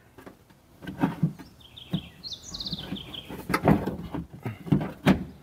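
Irregular knocks and clicks from hands working parts and cables into place inside a Nissan Versa door during lock reassembly. A bird chirps briefly in the middle.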